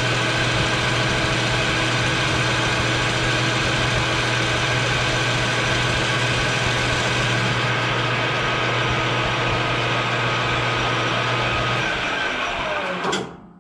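Grizzly G0776 gunsmithing lathe running, its spindle and chuck spinning at a steady speed with a steady whine. About twelve seconds in, the whine falls in pitch and dies away as the spindle winds down to a stop.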